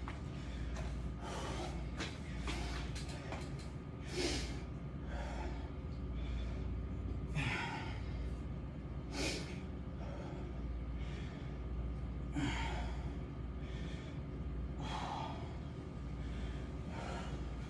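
A man breathing hard from exertion, with a loud gasping breath every second or so, over a steady low hum.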